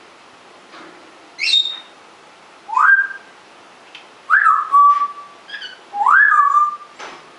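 African grey parrot whistling: a string of about five short whistles, several sliding up in pitch and then holding a steady note.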